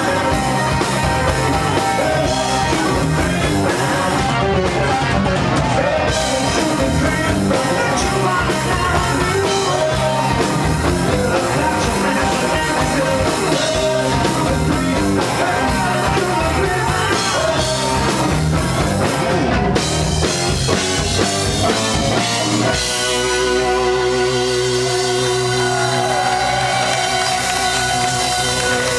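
Live rock band playing: lead vocals over distorted electric guitar, bass and drum kit. About 23 seconds in, the driving beat drops away and the band holds long sustained notes.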